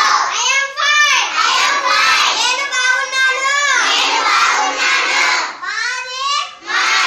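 Children's voices reciting aloud in a sing-song chant, with the pitch rising and falling from phrase to phrase.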